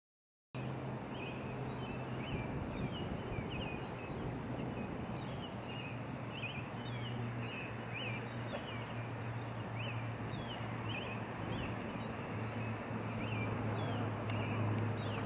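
Outdoor ambience of small birds chirping, many short quick calls, over a steady hiss and a low hum, starting abruptly about half a second in.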